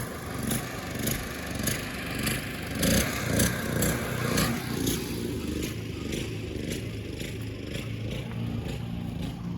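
Single-cylinder engine of a walk-behind tractor (motoblock) running steadily, with footsteps at a walking pace, a little under two a second, over the first half that then fade.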